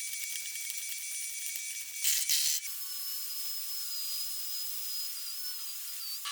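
A small high-speed motor whining steadily, with a brief louder burst about two seconds in, after which a steady whine carries on at a different pitch.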